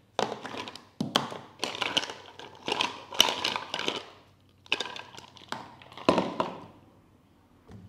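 Ice cubes being picked out of a plastic bowl and dropped one by one into a food chopper's clear jar onto ground mackerel, a series of about ten knocks and clicks that stops near the end.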